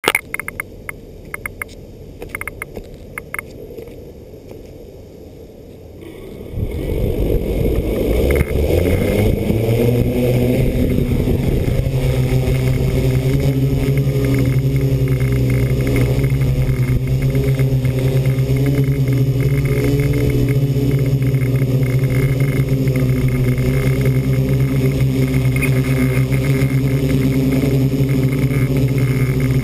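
Multirotor drone's electric motors and propellers spinning up about six seconds in, their pitch rising for several seconds, then running at a steady pitch as the craft lifts off and climbs. A few short clicks come before the motors start.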